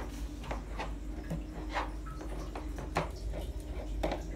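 Hard plastic playset parts of a Barbie tiki hut clicking and knocking together as the frame pieces are fitted: a handful of sharp, irregularly spaced clicks.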